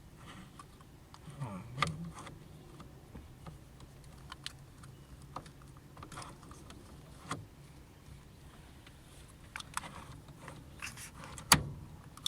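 Scattered light clicks and clinks of small metal parts and tools being handled, with one sharp click near the end.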